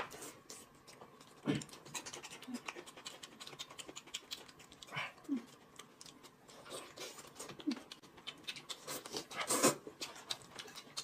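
Close-up eating sounds of two people: chewing and lip-smacking on roast chicken and noodles, with many small wet mouth clicks and a few short murmurs, and a louder noodle slurp near the end.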